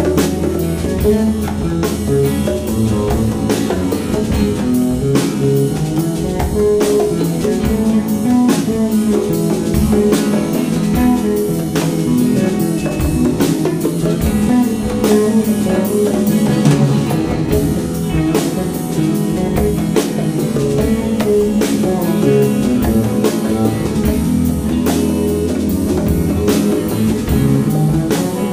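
A live band playing a blues-soul groove: electric guitar, electric bass, drum kit and hand-played congas, with a steady beat throughout.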